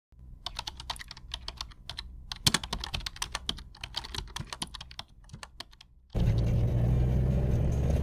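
Rapid, irregular clicking of keys being typed on a computer keyboard, a typing sound effect, for about six seconds. It then cuts abruptly to the steady low drone of a vehicle driving.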